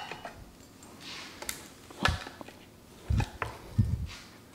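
A few knocks and taps on a wooden cutting board as garlic cloves are handled and a chef's knife is picked up: a light click, then a sharp knock about two seconds in, then two dull low thuds a second apart.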